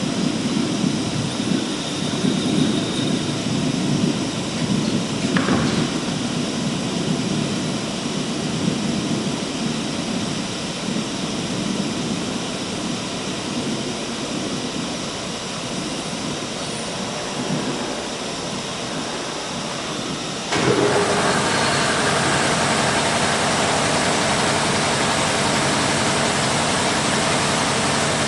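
Workshop machinery noise: a rumbling, uneven machine noise that about twenty seconds in jumps abruptly to a louder, steady whooshing noise, as of a machine or extractor starting up.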